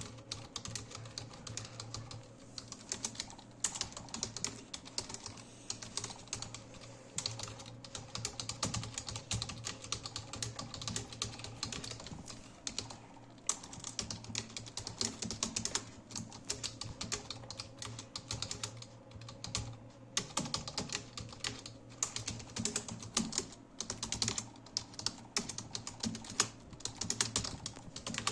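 Fast typing on a computer keyboard: a quick, uneven stream of key clicks with a few brief pauses, running at about 55 words per minute.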